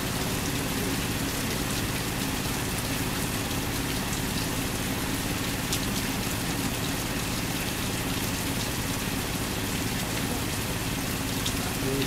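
Steady rain falling, with a faint low drone from the JCB excavator's diesel engine beneath it.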